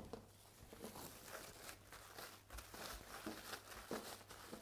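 Cling film crinkling and rustling as it is wrapped by hand around a roll of dough, in faint, irregular crackles.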